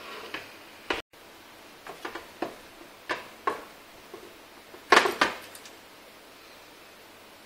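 Clicks and metallic clatter as a monitor's power and inverter circuit board is handled and lifted out of its sheet-metal chassis tray, with a louder pair of clanks about five seconds in.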